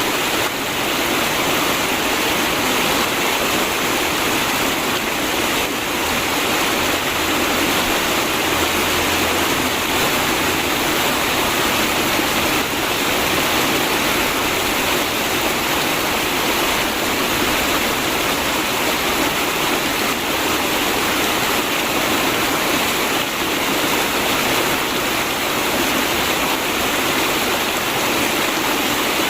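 River water flowing steadily, a constant rushing, gurgling sound with no breaks.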